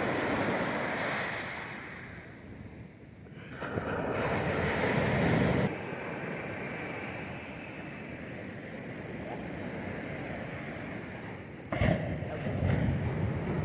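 Ocean surf breaking and washing up a sandy beach, rising and falling in swells. The sound drops sharply about six seconds in and jumps up again near the end.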